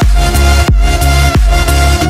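Electronic dance music with a heavy bass and a steady pumping beat, roughly three pulses every two seconds.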